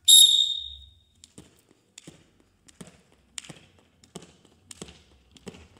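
A loud high-pitched start signal sounds for about a second. Then a jump rope skips steadily on a concrete court, the rope slapping the ground and the feet landing in short sharp ticks about every 0.7 seconds.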